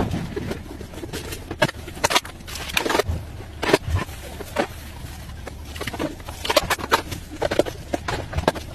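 Metal pot lids, pans and a skimmer clattering and clinking against each other and the stainless steel sink while dishes are washed by hand, with sponge scrubbing between the knocks. The knocks come irregularly, a few of them sharp and loud.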